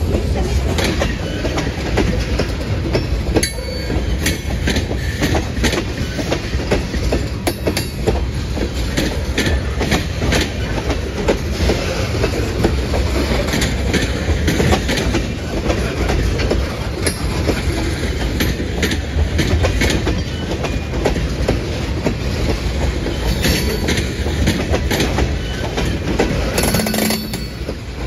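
Freight train of loaded tank cars rolling steadily past at close range: a continuous rumble of steel wheels on rail, with repeated clicks and knocks as the wheels cross rail joints.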